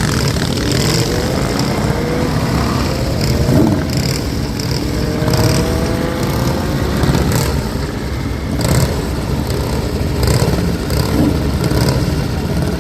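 Motorcycle engines running, with a rising engine note a few seconds in as a bike accelerates away.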